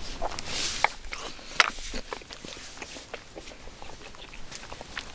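A person eating: a short breathy sniff, then a few light knocks of a wooden spoon against a wooden plate as it is put down on a slatted wooden board, followed by faint small ticks.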